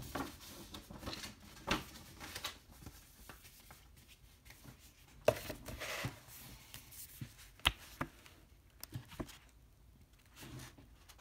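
Rustling and soft knocks of a cardboard Blu-ray box and its paper booklet being handled: the booklet is slid out of the box and opened. Two sharp taps stand out, about five and seven and a half seconds in.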